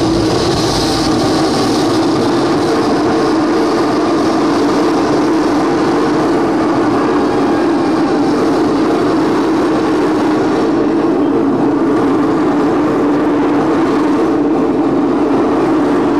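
Live amplified noise-drone performance: a loud, unbroken wall of distorted hiss and rumble with a low droning tone held throughout, with no beat or rhythm. The top end thins out a little past the middle.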